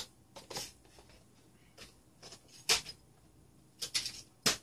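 A few short, scattered clatters and rustles of someone rummaging for a small screwdriver.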